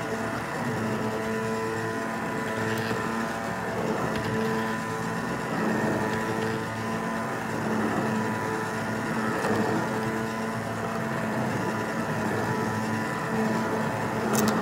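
Electric immersion (stick) blender running in a pot of hot soup, a steady motor whir with the churning of the liquid as the soup is puréed smooth.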